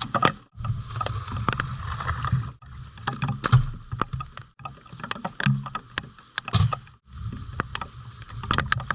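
Rain falling, with many irregular sharp taps of drops close to the microphone over a low rumble of wind and handling noise; the sound cuts out briefly several times.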